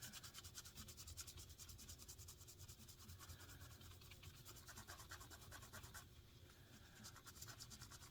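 Faint, fast scratchy rubbing strokes as a dirty guitar pickup is scrubbed clean with soap and water.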